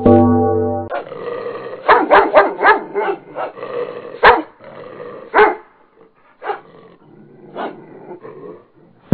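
Small terrier barking: a quick run of short barks, then single barks about a second apart that grow weaker.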